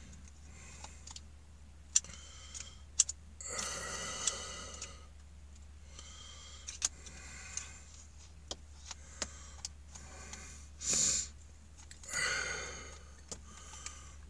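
Screwdriver clicking and scraping in a Makita drill chuck as it strains against the stuck flat-head retaining screw, with sharp clicks scattered throughout. Three strained grunts of effort come at about three and a half seconds, eleven seconds and twelve seconds.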